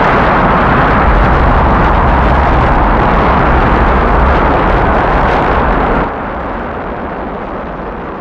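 Rocket main engines firing at liftoff, a loud, steady rumble. About six seconds in it drops suddenly to a quieter, duller rumble, the launch heard from a distance.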